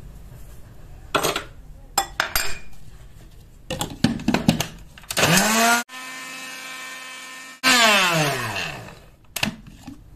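Electric spice grinder grinding dried garlic and salt into powder. Its motor spins up with a rising whine about five seconds in, runs steadily for a couple of seconds, then winds down with a falling whine. A few knocks of the grinder cup and lid come before it.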